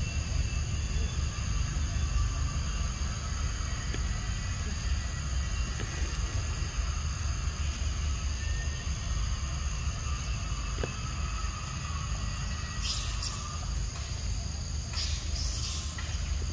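Steady high insect drone over a constant low rumble, with a few short, sharper high bursts in the last few seconds.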